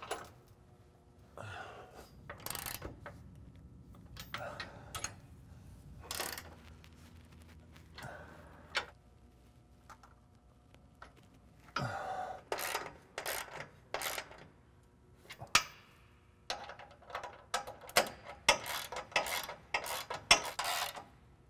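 Hand wrench tightening bolts on a truck frame: short bursts of metallic clicking and rattling, scattered at first and then in dense clusters about twelve seconds in and again from about sixteen seconds on.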